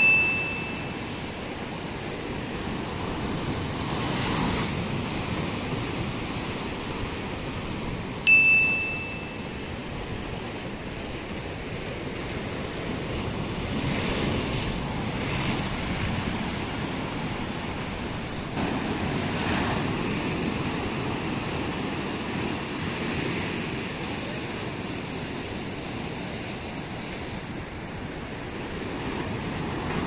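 Ocean surf surging and breaking over shore rocks, swelling and ebbing every few seconds. A short, high ding rings out twice, at the start and about eight seconds in, louder than the surf and fading over about a second.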